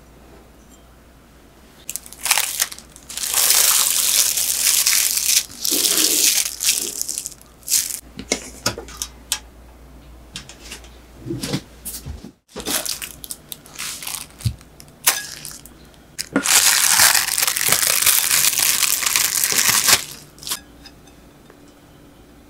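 Kitchen handling noises: two spells of crinkling, rustling noise a few seconds long each, with scattered clicks and knocks between them.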